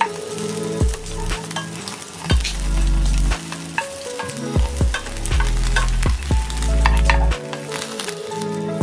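Food sizzling as it fries in a pan, with repeated clicks and scrapes of a utensil stirring it, over background music with held bass notes.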